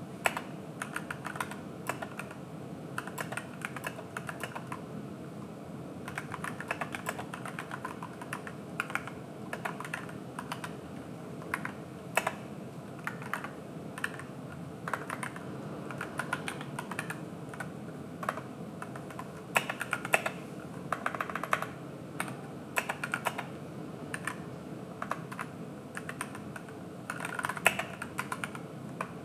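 Typing on an AKKO 3061S Tokyo R2 60% mechanical keyboard with yellow switches and PBT keycaps, set on a cloth desk mat. Key presses run in a steady stream of clacks with short pauses, denser in a few quick bursts.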